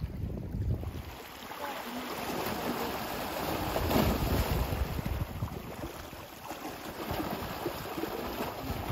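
Small sea waves washing and splashing against a rocky shoreline, swelling loudest about four seconds in, with some wind on the microphone.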